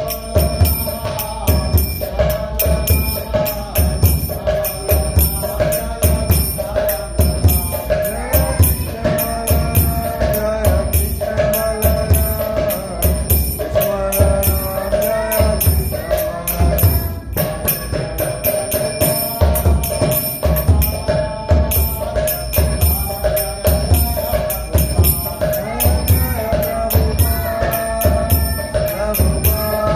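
Music with a steady drum beat, jingling hand percussion and a wavering melody.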